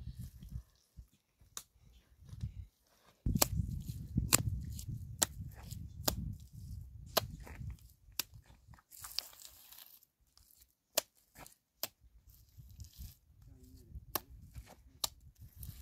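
A series of sharp knocks or snaps, roughly one a second at irregular spacing, over a low rumble that is loudest for a few seconds after about three seconds in.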